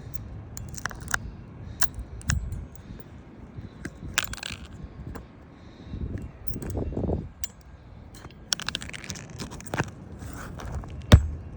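Asphalt roofing shingles and tools being handled: scraping and rustling with scattered sharp clicks and metal clinks, and one loud sharp knock near the end.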